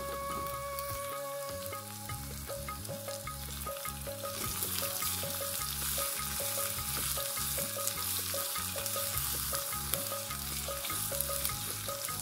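Chopped onions frying in a miniature saucepan over a gas flame, sizzling as a small wooden spoon stirs them. The sizzle grows louder about four seconds in, once the stirring gets going.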